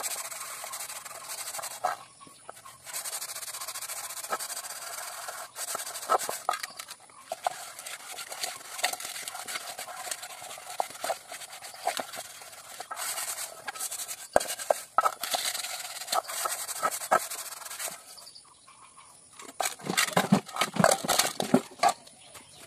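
Hands scrubbing a soapy pot, with rubbing and scraping and scattered small clinks. Near the end comes a denser run of louder knocks.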